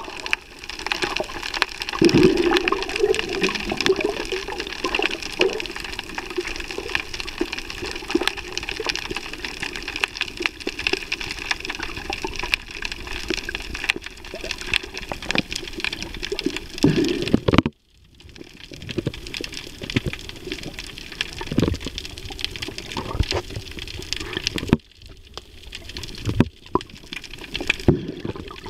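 Water sounds picked up by a camera held underwater in shallow sea: a steady hiss with small clicks and crackles and occasional low sloshing swells. The sound cuts out briefly twice, about two-thirds of the way in and again near the end.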